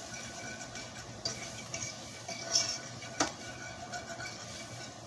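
Metal fork stirring and scraping flour and onions around a stainless steel skillet, with a few light clinks against the pan, as the flour is worked in for a gravy roux.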